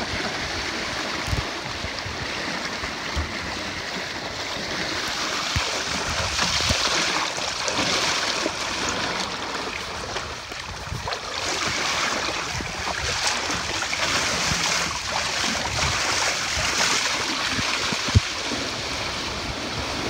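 Water rushing and splashing along the hulls of sailing canoes driven fast through choppy waves, swelling in surges, with wind buffeting the microphone in low thumps. A single sharp knock near the end is the loudest event.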